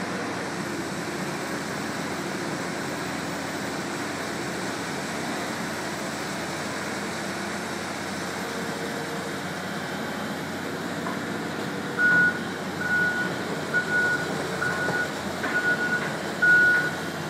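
Caterpillar excavator's diesel engine running steadily. About twelve seconds in, its high-pitched travel alarm starts beeping roughly once a second, signalling that the machine is moving.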